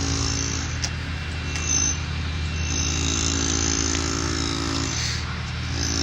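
Heavy machinery running steadily: a constant low engine drone, with a higher pitched tone that comes in after about three seconds, drops out near five seconds and returns at the end.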